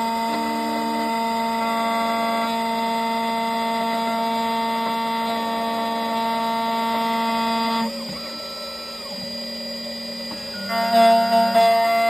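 Electronic key cutting machine's spindle motor running with a steady high whine while milling a Volkswagen flip-key blade. The whine stops about two-thirds of the way through and comes back louder near the end.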